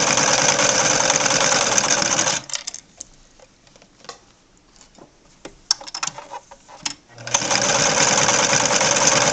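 Vintage Singer Fashion Mate 360 sewing machine running steadily as it sews at a lengthened stitch setting. It stops after about two and a half seconds, a few light clicks follow, and it starts sewing again about seven seconds in.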